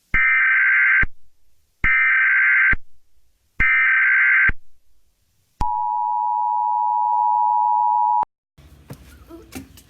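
Emergency Alert System tones: three bursts of the SAME digital header, each about a second long, then the two-tone attention signal, a steady two-note chord held for about two and a half seconds that cuts off suddenly.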